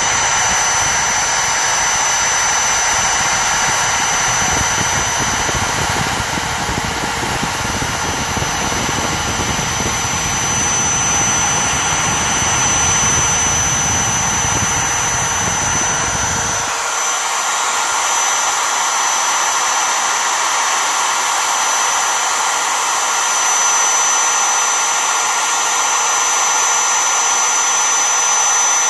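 Trim router spindle of a Mostly Printed CNC machine running steadily at high speed with a high whine while its bit carves a design into foam board. A lower rumble under it cuts off suddenly about seventeen seconds in.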